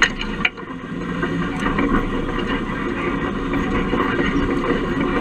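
Dodge Ramcharger driving over rough grassy ground, heard from a camera bolted under the chassis: a steady rumble of tyres and drivetrain, with two sharp knocks in the first half second.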